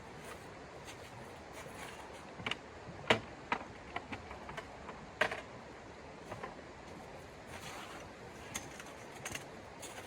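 Irregular sharp clicks and knocks, a handful of louder ones among fainter taps, over a steady faint hiss.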